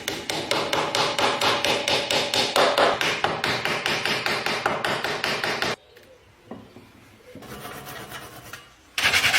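Rapid, even strokes of a hand tool working the scythe, about five a second, stopping about six seconds in; a faint scraping follows, and the strokes start again near the end.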